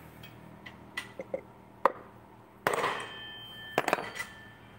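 Metal parts of a Honda Vario scooter's CVT pulley knocking and clinking as they are handled and fitted together: about seven separate sharp knocks, the loudest a bit over halfway in ringing on for about a second.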